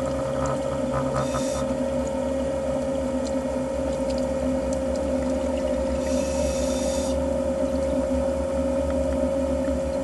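Underwater recording: a steady droning hum with a constant whine over a low rumble, broken by a short hiss from a diver's scuba regulator about a second in and a longer one about six seconds in.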